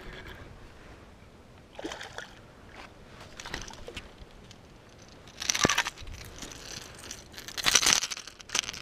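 Water splashing in several short bursts, the last two the loudest: a small bass thrashing at the surface as it is brought to the boat.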